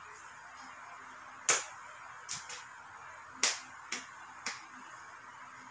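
Six short, sharp clicks at uneven intervals, the first and fourth loudest.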